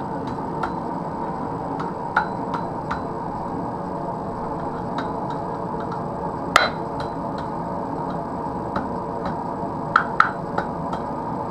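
Steady hum of forge background noise, broken by a few sharp metal clinks. The loudest clink rings briefly about six and a half seconds in, and two more come close together around ten seconds.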